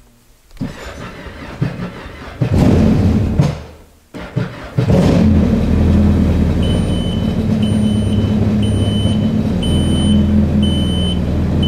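Jet ski engine started on a test fire after its battery was refitted: it catches briefly, stops, then starts again about a second later and idles steadily. From a little past the middle, a high beep sounds about once a second over the idle.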